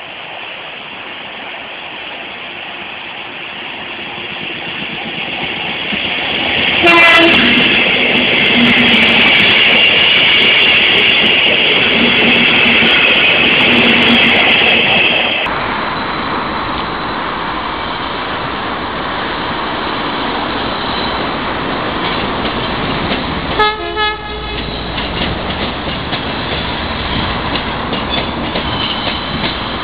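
A train approaching and passing, sounding its horn: the running noise builds, then a long horn blast starts about seven seconds in and holds until about fifteen seconds in. The train then runs past with steady wheel clatter, and gives one short horn toot near the end.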